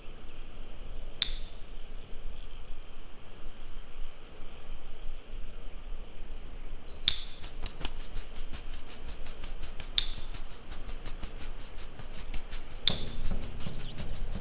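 Sparse bird chirps over a low hiss, broken by sharp metallic clinks every few seconds. About halfway through, a fast, even ticking begins, and low sustained music tones enter near the end.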